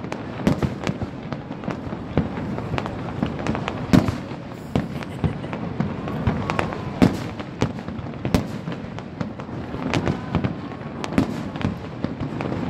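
Aerial fireworks shells bursting in quick succession: a steady run of bangs and crackles, with the loudest bang about four seconds in and further sharp ones about seven and eight and a half seconds in.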